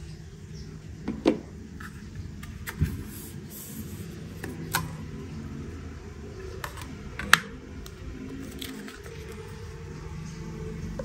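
Unboxing handling sounds: the packaging and small plastic parts of a Cardo Packtalk Bold motorcycle intercom set being handled, with a handful of sharp clicks and taps, the loudest about a second in and about seven seconds in, over a steady low hum.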